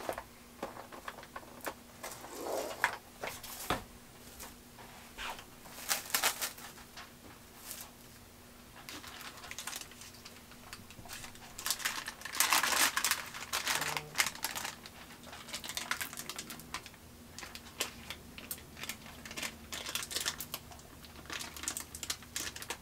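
Plastic cling wrap crinkling and crackling as it is pulled from the box, torn off and pressed around a frozen cheesecake, with parchment paper rustling. Scattered crackles and clicks, with the densest, loudest rustling about halfway through.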